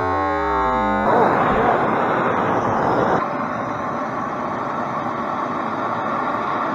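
About a second of distorted electric-guitar music that cuts off, then a torch flame hissing steadily, louder at first and settling to an even level about three seconds in.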